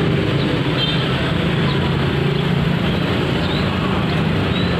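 Steady engine and traffic rumble, even in level throughout.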